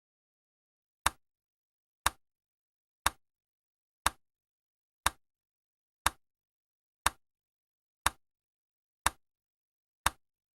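Countdown timer tick sound effect: ten short, sharp ticks, one each second, marking off the seconds of the countdown, with dead silence between them.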